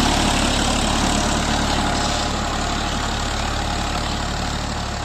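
Tractor engine running steadily while ploughing a field, slowly getting quieter.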